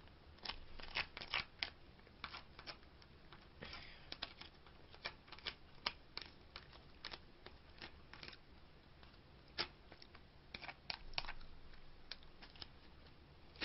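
Faint, scattered clicks and small smacks of eating: a metal spoon scraping and tapping inside a snow crab's top shell, with close-up mouth sounds of chewing.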